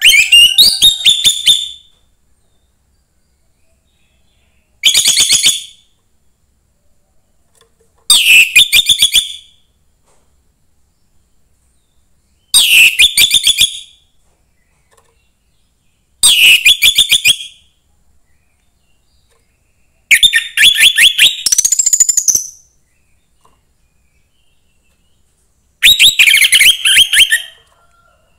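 Young wild orange-headed thrush calling: seven short bursts of rapid-fire notes, each one to two seconds long and a few seconds apart, the sixth somewhat longer.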